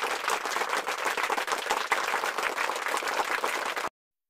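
Recorded applause, many hands clapping at a steady density, cutting off suddenly near the end.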